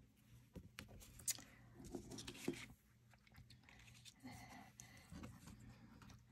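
Faint handling sounds: scattered small clicks and soft paper rustling as cardstock pieces and thin metal cutting dies are laid onto a die-cutting plate.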